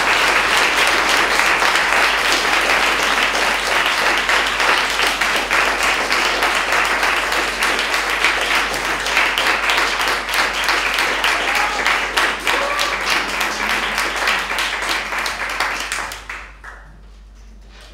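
Audience applauding, dense clapping that dies away about two seconds before the end.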